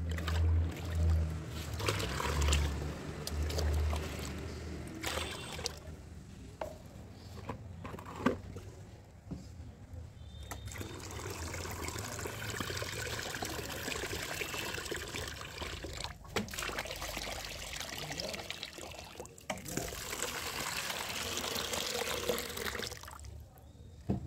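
A stream of water pouring and splashing into a plastic pot of thick fermented kitchen-waste slurry, diluting it. In the first few seconds there is uneven sloshing as a hand stirs the pot. From about ten seconds in, the water runs in steadily, then stops near the end.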